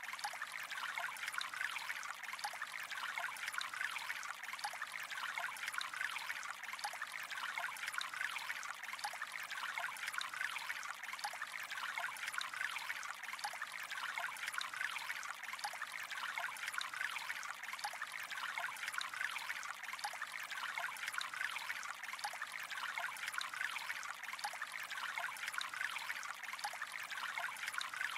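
Gently flowing water: a steady, even trickle with many small splashes.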